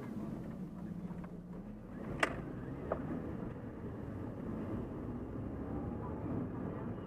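Volvo S40's engine running, heard inside the car's cabin, with road noise; its steady note changes about two seconds in, around a gear change. Two sharp clicks come a little under a second apart just after.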